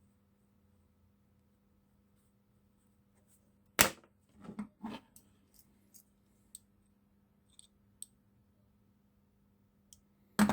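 Small metal tools and parts being handled on a workbench: a sharp click about four seconds in, two softer knocks just after, scattered light ticks, and louder clicks near the end, over a faint steady hum.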